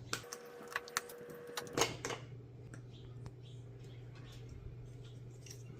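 Plastic clicks and snaps from handling a scan tool's Bluetooth-dongle holder piece while it is being changed, a quick run of sharp clicks over the first two seconds, then a few faint taps.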